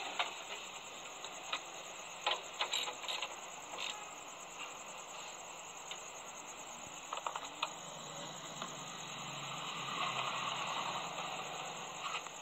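Scattered light metallic clicks and knocks from hand tools and parts being handled at a car's radiator and core support, with a quick run of clicks partway through. A low hum swells and fades in the later part.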